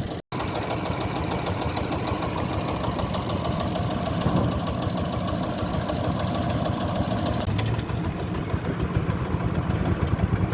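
Power tiller's single-cylinder diesel engine running with a steady, rapid knock. It cuts out briefly just after the start.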